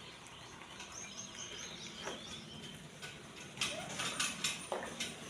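Small birds chirping faintly, with a run of sharp clicks or rustles starting about three and a half seconds in.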